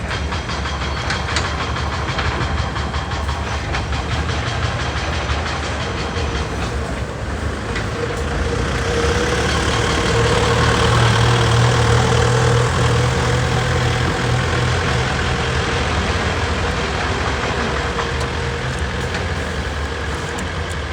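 A large engine running steadily with a low hum. It grows louder from about nine seconds in, then eases off again.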